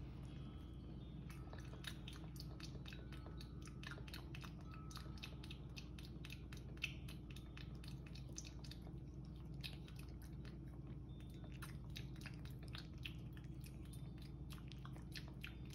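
Kitten chewing and smacking on pieces of cooked shrimp: a rapid, irregular run of small wet mouth clicks, several a second, over a steady low hum.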